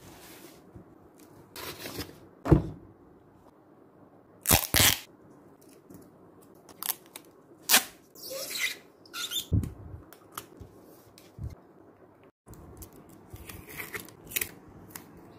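Masking tape being pulled off the roll and torn in a series of separate rips, with paper sheets rustling as they are laid down and pressed flat.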